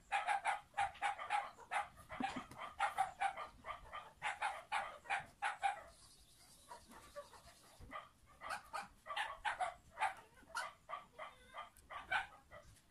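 Rapid, repeated animal calls, about four a second, that break off about halfway through and start again a couple of seconds later.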